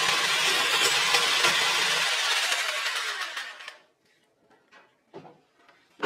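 Electric jigsaw driving a hacksaw blade through a rectangular steel tube, running steadily. It is switched off about two seconds in and winds down over the next two seconds. A few light knocks follow as the tool is handled, with a louder knock at the very end.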